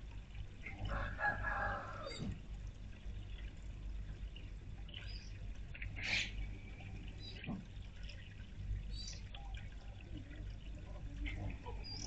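Small fountain birdbath running steadily, water spilling into its basin. A loud drawn-out call with a falling end comes about a second in, and short bird chirps follow here and there.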